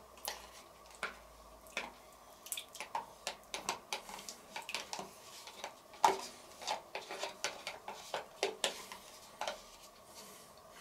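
A spoon scraping crème fraîche out of a plastic tub into a stew kettle, with irregular light clicks and scrapes of spoon against tub. The sharpest knock comes about six seconds in.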